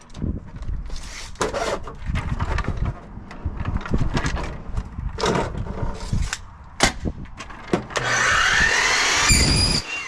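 Aluminum downspout pieces knocking and clattering as they are handled and fitted, then a power drill runs for about two seconds near the end, its pitch rising as it speeds up and falling as it stops.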